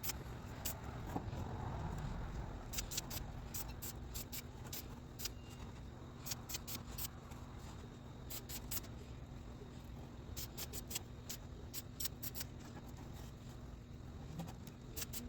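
Irregular sharp little clicks and taps, dozens of them scattered throughout, over a low steady hum: small hand work on a tiny model.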